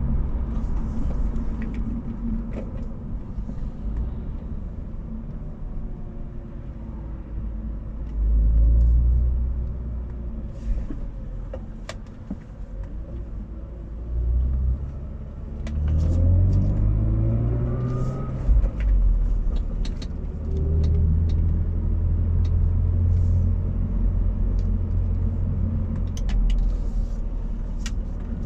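BMW Z4 driving at low speed with a low rear-end hum, swelling several times as it pulls away and eases off, and faint rising whines as it accelerates. The cause of the hum is unknown to the owner.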